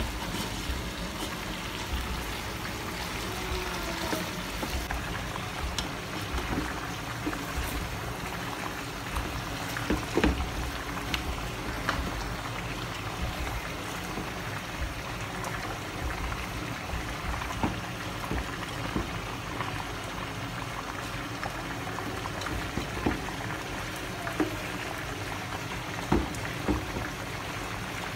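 Marinated chicken pieces cooking in a pot on a high gas flame, the juices bubbling and sizzling steadily, with occasional sharp clicks and scrapes of a spatula against the pot.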